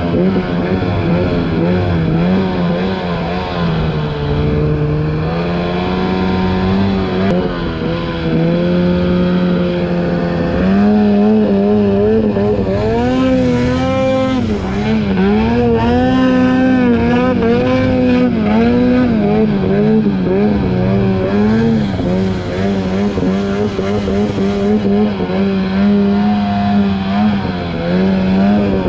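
Snowmobile engine running continuously under load while riding, its pitch rising and falling again and again as the throttle is worked.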